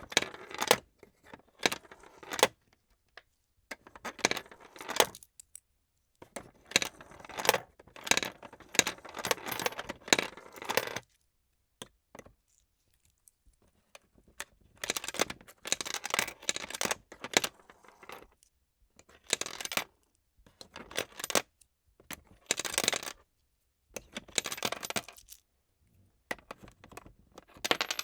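Coins dropped one after another into a plastic coin sorter, clattering and rattling as they roll along the tray and drop into their slots. The clinks come in bursts of a second or few, with short pauses between them and a longer pause in the middle.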